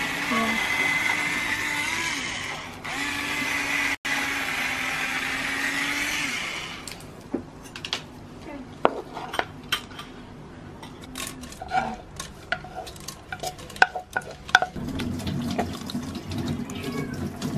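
Small electric salt-and-pepper grinder whirring steadily for about seven seconds, with a short break near three seconds. Then a wooden spatula scrapes and clicks irregularly as rice is stirred in a stone-coated frying pan. Near the end, liquid pours into a plastic measuring cup.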